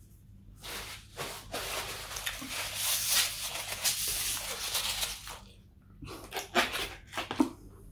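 A paper napkin rustling as it is rubbed against the face for about four seconds, then a few sharp crackles as a piece of pizza is pulled from the cardboard box near the end.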